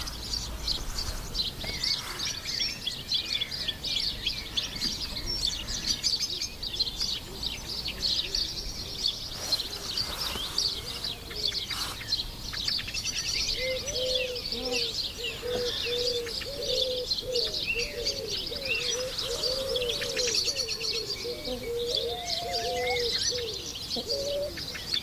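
Busy high-pitched chirping of small birds throughout. About halfway through, a dove starts a run of low, repeated coos that carries on until near the end.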